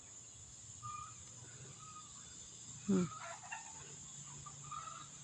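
Steady high-pitched insect drone, with faint bird chirps and one short, louder call that falls in pitch about three seconds in.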